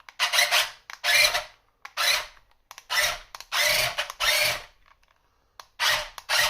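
The electric drive motors and gearboxes of a JJRC Q137 8x8 skid-steer RC vehicle whirring in about eight short bursts, each roughly half a second long, as the controls are blipped. The control is on/off, not proportional, so every burst runs at full speed.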